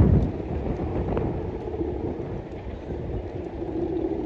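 Steady droning hum at one pitch, typical of a Balinese kite's hummer (guangan) singing in the wind, growing stronger about halfway through. Wind buffets the microphone throughout, with a strong gust at the start.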